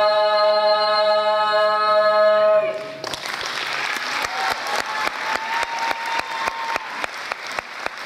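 A folk choir of women's voices with one man's voice holds the final chord of a drawn-out South Russian folk song a cappella, cutting off about two and a half seconds in. Audience applause follows, with separate claps.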